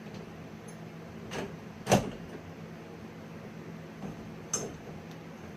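Three scattered knocks from BMX bike parts and tools being handled during assembly, the sharpest and loudest about two seconds in, over a steady low hum.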